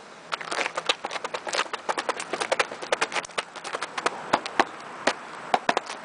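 Sneakers stepping, stamping and scuffing on loose gravel close to the ground, a quick irregular run of sharp crunches and clicks.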